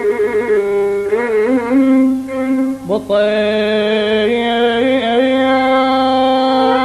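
Instrumental passage of an Iraqi rifi song: a lead melody instrument plays ornamented, wavering phrases, swoops in pitch about three seconds in, then holds long notes, over a faint steady low beat.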